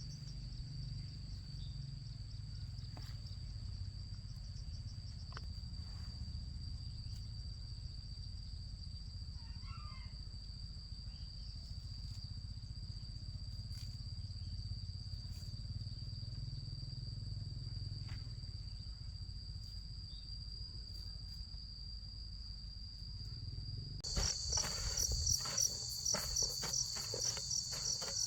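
Crickets trilling steadily over a low rumble. About 24 seconds in it changes to louder crickets chirping about three times a second, with a quick run of sharp knocks.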